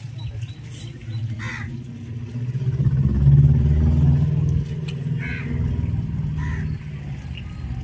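An engine running, a low steady drone that swells to its loudest about three seconds in and drops back at about four and a half seconds.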